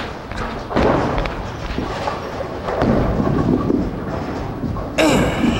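Bowling alley din: a low, continuous rumble of balls rolling on wooden lanes, with heavier thuds about a second in and again near the middle as a bowler hops along the wooden approach. A sharp, bright burst comes near the end.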